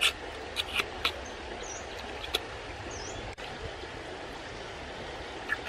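Steady rush of a shallow rocky stream, with a few short sharp clicks and smacks, most in the first second or so, as cooked cockles are pried open and their meat sucked from the shell.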